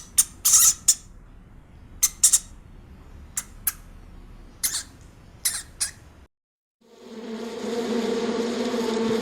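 About a dozen short, sharp animal calls in irregular groups, followed after a brief gap by a steady buzz that begins about seven seconds in.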